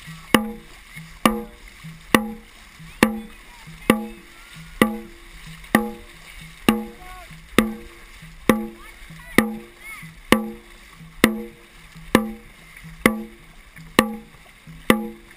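Dragon boat drum beaten steadily, one loud strike a little under once a second, each beat ringing briefly: the drum beat that sets the paddlers' stroke rate. Paddles splash and water rushes underneath.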